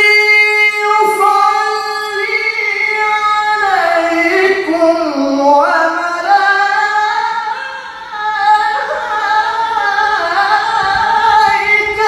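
A man reciting the Qur'an in melodic tilawah style into a microphone, in a high voice with long held notes that glide and turn. There is a short breath break about eight seconds in.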